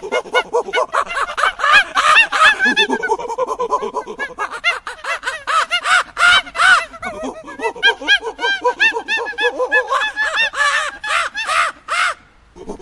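Monkeys calling in a dense run of short, shrill calls that rise and fall in pitch, several a second and overlapping, breaking off briefly near the end.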